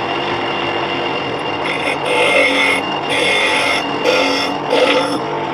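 Bench grinder running with a steady hum while a square nail is pressed against the spinning wheel. The contact comes in several louder, higher-pitched grinding bursts.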